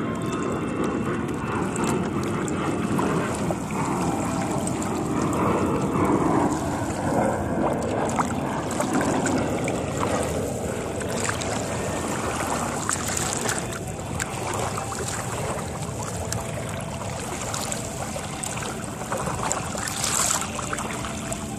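Water rushing and splashing along the hull of a small melonseed sailing skiff under way, in steady surges, with wind noise on the microphone.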